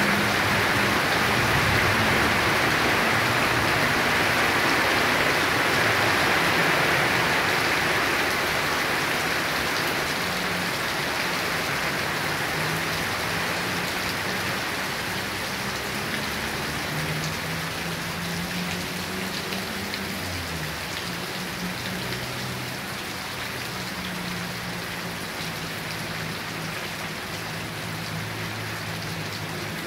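Heavy rain pouring steadily, a dense even hiss that eases slightly from about a third of the way in.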